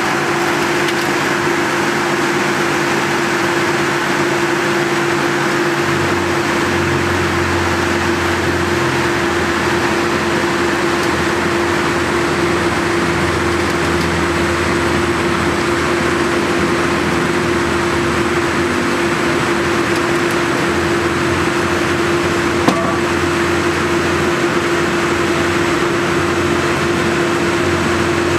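MS Maschinenbau sawmill line running: electric saw units and roller conveyors give a steady, loud machine noise with a constant hum. A deeper rumble joins about six seconds in, and there is a single short knock near the end.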